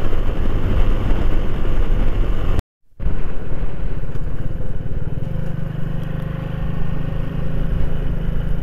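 A Corven Hunter 150cc motorcycle's engine running at cruising speed on the highway, under a steady rush of wind and road noise. The sound drops out for a moment about two and a half seconds in, after which the engine hum is steadier.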